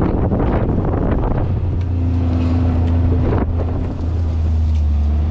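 Kawasaki Mule Pro side-by-side utility vehicle driving along a dirt track: a steady low engine drone, with wind buffeting the microphone.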